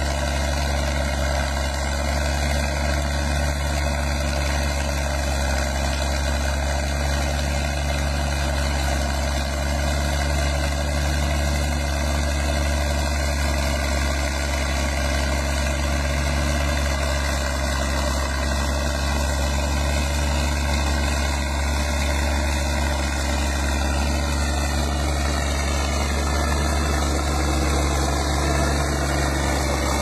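New Holland TM-series tractor's diesel engine running steadily as it pulls a plough through the soil, a constant low drone.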